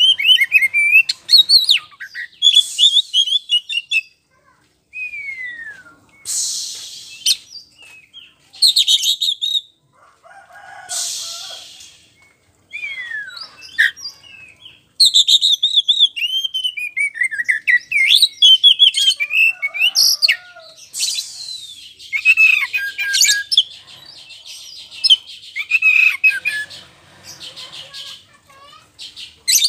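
Oriental magpie-robin (kacer poci) in full song: a long, varied run of loud whistled phrases sliding up and down in pitch, broken by a few short harsh bursts.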